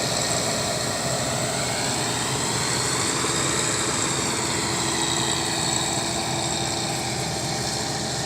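Farm machinery's diesel engine running steadily, with no change in speed.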